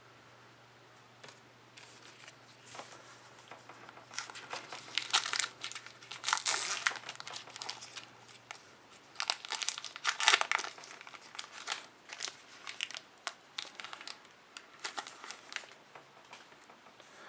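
A trading card pack's plastic wrapper being torn open and crinkled by hand, in irregular crackling bursts that are loudest about 5, 6 and 10 seconds in.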